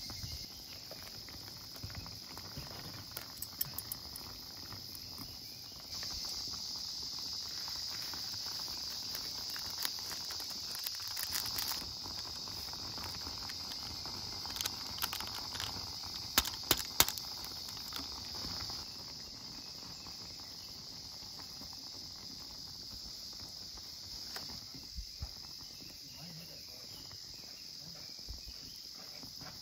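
A steady high-pitched drone of summer insects runs throughout. A louder hiss comes in about six seconds in and drops off near nineteen seconds. Scattered sharp clicks and taps fall around the middle.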